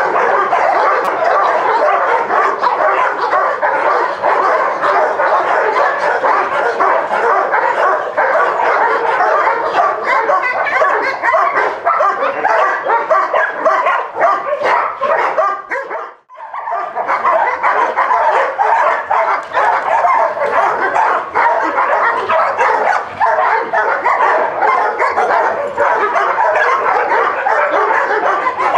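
Dogs barking and yipping continuously in a dense, overlapping chorus, with a brief break just past halfway.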